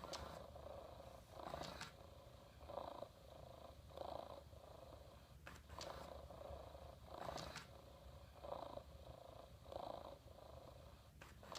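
Hasbro Joy For All robot cat purring in a long loop: a quiet, rhythmic electronic purr that swells about once every second and a half.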